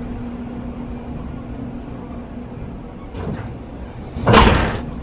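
Railway train rolling slowly past on the adjacent track with a steady hum. About three seconds in there is a short burst of noise, then a louder half-second rush of noise.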